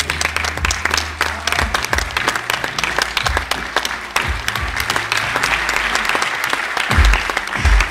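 Audience applauding, dense clapping throughout, with music and its bass underneath; heavy low bass beats come in near the end.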